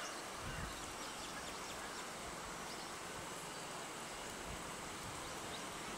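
Steady outdoor background hiss with faint, short high chirps scattered through it.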